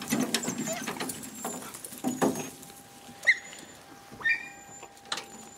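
Rabbit-hunting dogs giving short high whines, twice about halfway through, amid scattered knocks and rustling.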